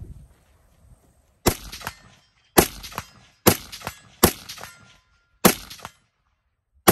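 Six rifle shots at a 100-yard target, about a second apart, each trailing off briefly.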